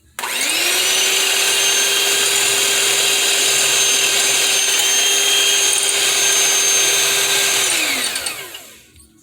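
Electric blender running at a steady speed, blending a raw egg with apple cider vinegar. The motor spins up quickly at the start, with a steady whine, and winds down near the end.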